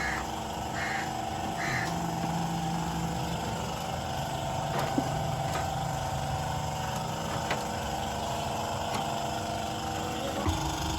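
An engine idling steadily, with three short high calls near the start and a few light clicks.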